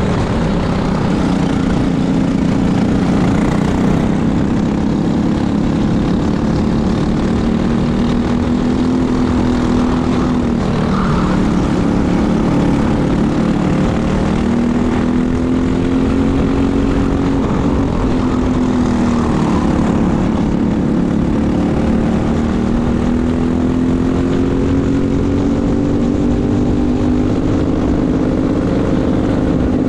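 Racing go-kart's Briggs & Stratton LO206 single-cylinder four-stroke engine at racing speed. Its revs climb and fall again and again as the kart runs down straights and through corners.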